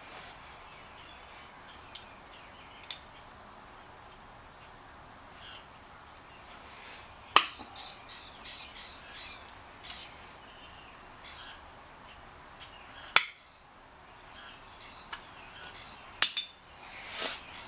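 Faint bird chirps in the background with a scattering of sharp clicks and clinks, three of them much louder than the rest.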